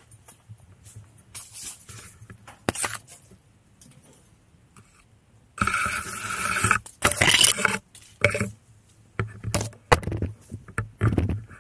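Handling noise as a 360 camera is moved down under the bridge: irregular scraping and rubbing with short knocks, loudest a little past the middle.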